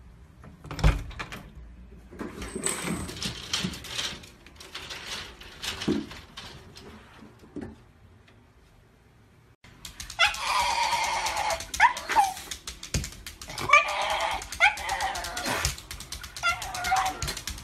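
A knock about a second in and scattered clicks and shuffling, then, from about ten seconds in, a Shiba Inu vocalizing in a series of pitched cries that bend up and down, loud and repeated in several runs.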